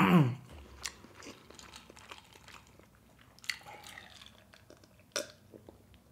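Close-miked mouth sounds of chewing, then a man drinking water from a glass: sips and gulps in the second half, with a sharp gulp about five seconds in.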